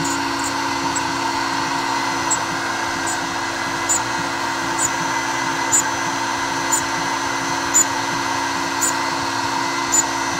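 Older water-cooled CNC milling machine's spindle running steadily while a mill bit cuts a jewelry wax, with a short high tick about once a second.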